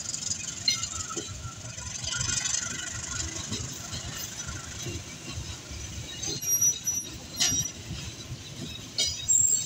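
Passenger train coaches rolling past on the rails: a steady low rumble of wheels on track with scattered knocks over the rail joints, and a couple of brief high wheel squeals in the second half.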